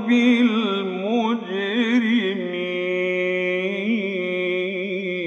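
A man's voice chanting Quran recitation in the melodic tajweed style, drawing out 'naf'alu bil-mujrimin'. It winds up and down in quick turns for about two and a half seconds, then holds one long steady note.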